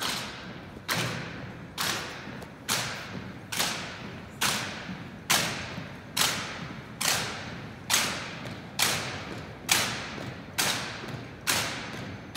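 A squad of marching cadets' boots striking a hardwood gym floor in unison, one sharp echoing step about every second.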